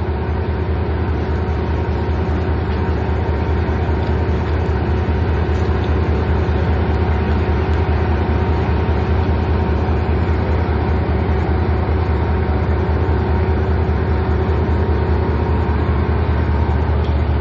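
Diesel locomotive idling at the platform, a steady low engine hum with a few fixed tones above it that does not change.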